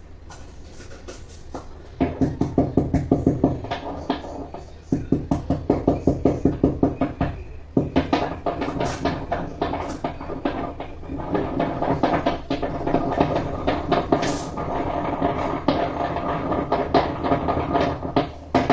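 Spoon stirring and scraping thick white sauce with vegetables in a frying pan, in quick rhythmic strokes of about four to five a second. It starts about two seconds in, with short breaks.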